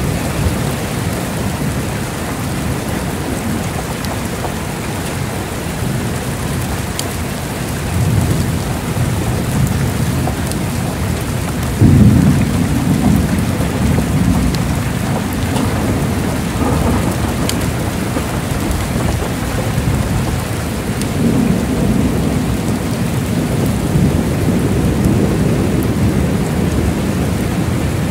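Heavy rain hissing steadily through a thunderstorm, with low rolls of thunder. The loudest is a sudden clap about twelve seconds in that rumbles on for several seconds; fainter rumbles come a few seconds earlier and again near twenty seconds.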